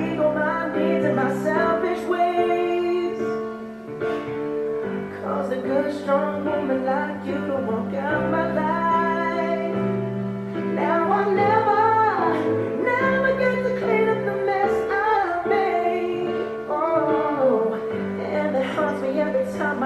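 A song with a female singer and instrumental accompaniment, playing from a vinyl record on a turntable through home speakers.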